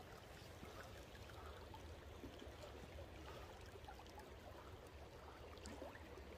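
Near silence: a faint, steady wash of flowing river water, with a few faint small ticks.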